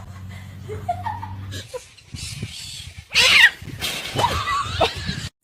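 An animal's loud, sharp cry about three seconds in, falling steeply in pitch, followed by shorter wavering calls.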